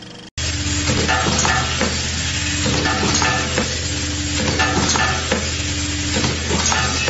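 Automatic vial filling and capping machine running: a steady motor hum under a dense, irregular rattle of small clicks from plastic caps and parts moving through the line. It starts suddenly just after the start.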